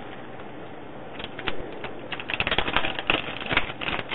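Ink cartridge's plastic wrapper being pulled open and handled: a run of small crackles and clicks that starts about a second in and grows dense in the second half.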